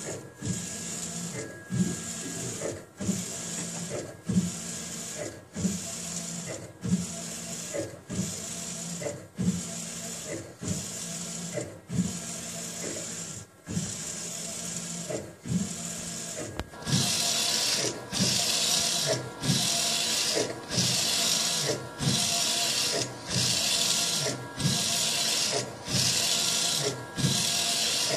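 AnaJet mPower direct-to-garment inkjet printer's print-head carriage shuttling back and forth over a black T-shirt. It makes a regular whirring pass with a knock at each reversal, about one pass every three-quarters of a second. A little past halfway the whirring becomes much louder and hissier.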